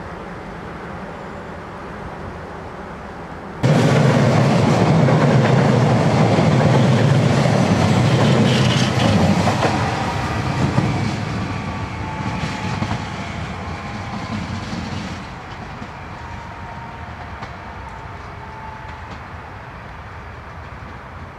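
Fertagus 3500-series Siemens-CAF double-deck electric multiple unit passing close on the rails. The loud rush of its wheels and running gear cuts in suddenly about three and a half seconds in, holds for several seconds, then dies away gradually as the train moves off.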